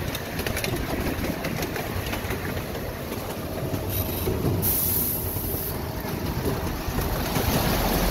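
Miniature train running along its track, heard from an open passenger car: a steady rumble with faint clicks. There is a brief high hiss about halfway through, and the sound grows a little louder near the end as the train enters a tunnel.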